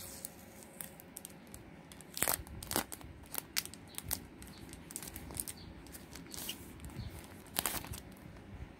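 Protective plastic film being peeled off a metal nail stamping plate: irregular crackling and crinkling, with louder rips about two seconds in and near the end.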